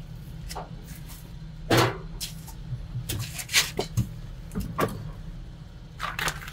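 Hands unplugging and handling plastic wiring connectors on a generator's alternator end: a string of sharp clicks and knocks, the loudest about two seconds in, over a steady low hum.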